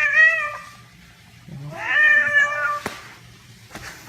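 A cat meowing twice in long, drawn-out calls: one right at the start and another about a second and a half in, each rising then falling in pitch. A short click follows near the end of the second call.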